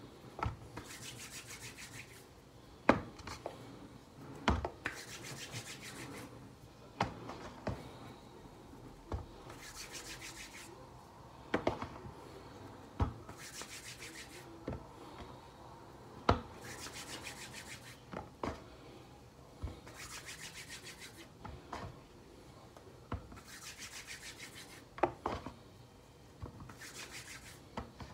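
Hands rolling dough between the palms to make spinner dumplings. A rasping rub of about a second comes every two to three seconds, with sharp knocks in between.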